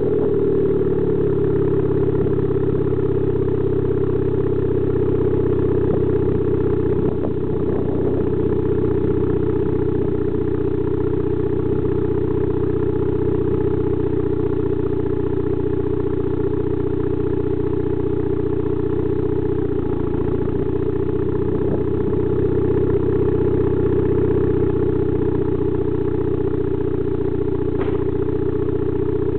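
Turbocharged 420A 2.0-litre four-cylinder with 272 cams idling steadily through a catless 2.5-inch downpipe and 3-inch catback exhaust.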